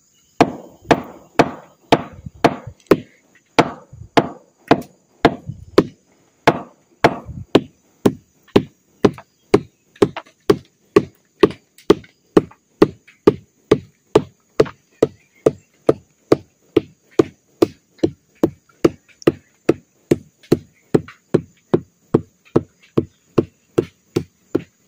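A mallet beats the flower stalk of a sugar palm (aren) in repeated dull knocks, about two blows a second. This is the bruising of the stalk from base to tip that stimulates sap (nira) flow before the stalk is cut for tapping.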